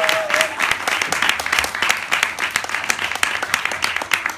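Audience applauding, a dense, steady patter of clapping. A short cheer from the crowd trails off in the first half-second.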